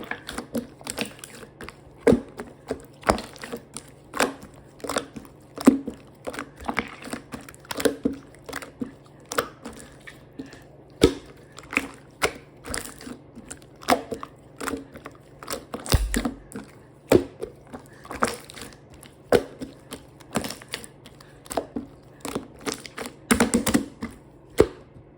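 Slime being squeezed and pressed by hand, giving a run of irregular sticky clicks and small pops.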